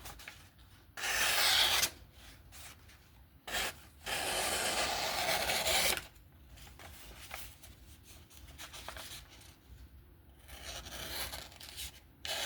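Nitro V steel knife blade drawn in long rasping passes across a sharpening surface during edge refinement. There are two loud strokes, about one and two seconds long, with a short knock between them and fainter passes near the end.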